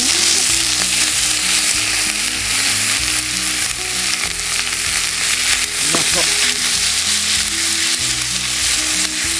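Sliced pork offal frying in a hot skillet, sizzling steadily as it is tipped in from its tray and stirred with chopsticks.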